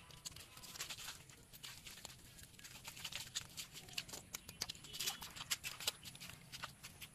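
Wet, irregular squelches and slaps of hands digging and scooping through sticky mud and muddy water in a shallow trench, with bare feet squelching in the mud near the end.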